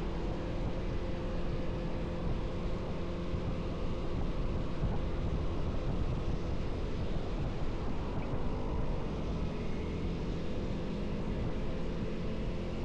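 Motorcycle engine running steadily while riding, under constant road and wind noise.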